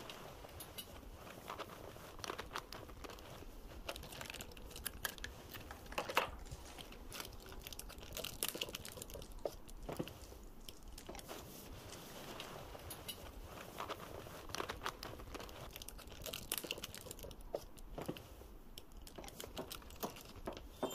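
Hands fiddling with small objects at a coffee table: irregular crinkling, crackling and soft clicks, with a sharper click about six seconds in.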